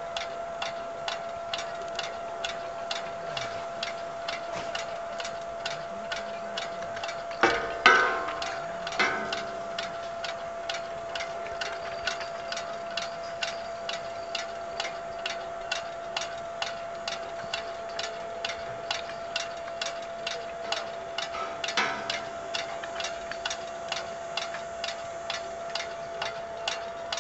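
Regular mechanical ticking, evenly spaced, over a constant steady hum, with a couple of louder knocks about eight seconds in and again near twenty-two seconds.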